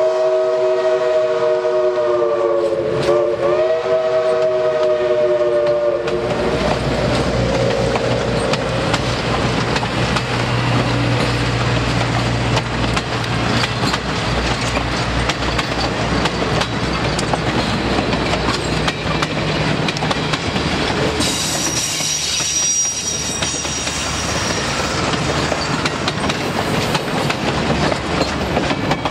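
Steam locomotive whistle blowing one long chime-like blast of several tones, sagging briefly in pitch about three seconds in and stopping about six seconds in. Passenger cars then roll past with a steady rumble and wheels clicking over the rail joints.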